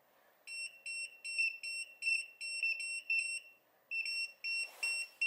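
Retekess TD163 guest pager sounding its call alert: a high-pitched beep repeated rapidly, about three to four times a second. It starts about half a second in and pauses briefly before resuming near the end.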